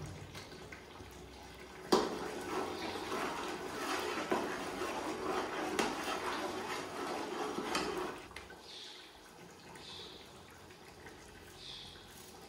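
A sharp clack, then about six seconds of liquid splashing and running noise with a few knocks, which stops abruptly.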